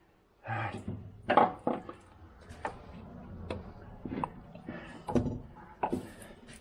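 Irregular knocks, clicks and clunks of metal parts being handled during a front CV axle shaft replacement, about a dozen sharp strikes spread over several seconds.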